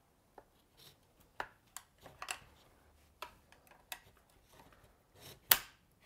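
Flat-blade screwdriver prying at a small rectangular metal cover piece on a Stihl MS180C chainsaw's housing: scattered light metal scrapes and clicks, with the sharpest click near the end.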